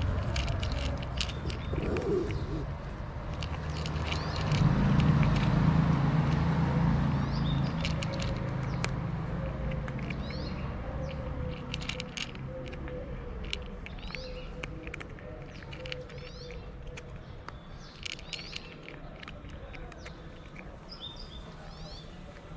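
A cat crunching dry kibble close by, in quick crisp clicks, while small birds chirp in short calls. A low traffic rumble swells about four seconds in and fades slowly away.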